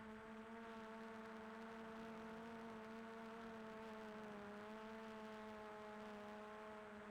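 Faint steady motor whine made of several stacked tones that drift slightly in pitch, dipping a little about four seconds in.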